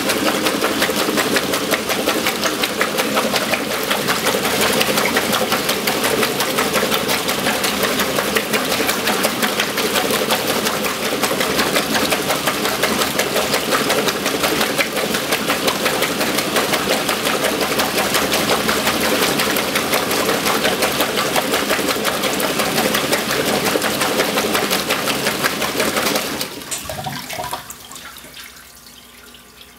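1963 Frigidaire Custom Imperial washer agitating while it keeps filling for an overflow rinse: the motor and Multi-Matic belt-drive transmission run steadily and the water churns. About 26 seconds in, the agitation stops, the level drops sharply, and only quieter water sounds are left.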